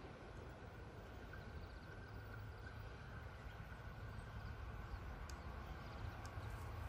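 Quiet outdoor ambience with a faint low rumble that grows slowly louder toward the end: an E3 series mini-shinkansen electric train approaching from a distance along the line.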